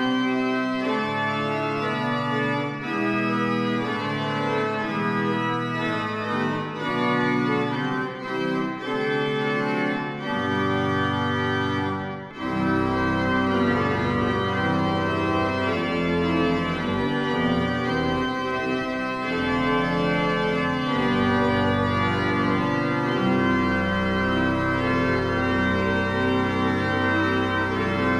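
Bätz pipe organ playing held chords. About ten seconds in, deep pedal bass notes join. After a brief break near twelve seconds, the organ goes on with a fuller sound.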